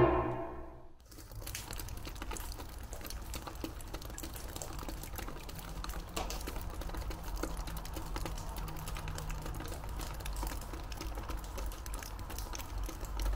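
Bowed-string music fades out in the first second. Then comes a steady bed of dense, faint crackling clicks over a low hum.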